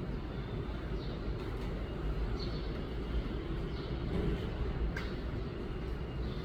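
Steady low outdoor rumble with faint, short high chirps repeating about every second and a half, and a sharp click near the end.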